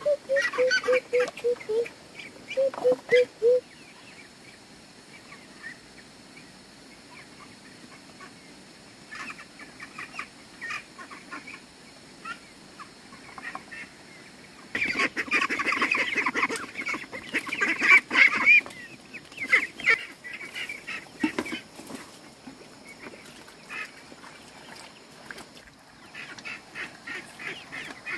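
Domestic ducks quacking, starting with a fast run of repeated calls. About fifteen seconds in there is a loud burst of many birds calling over one another, with chickens among the flock.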